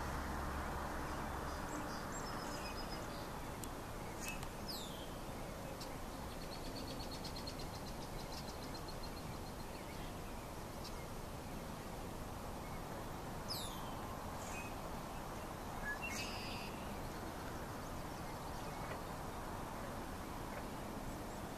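Open-air background of a steady low rush of noise, with small birds calling now and then: a few short, high, falling whistles and one brief rapid trill.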